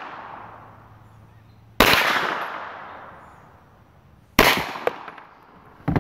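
Two rifle shots from a Hi-Point 995 9mm carbine, about two and a half seconds apart. Each shot is followed by a long echoing tail that dies away.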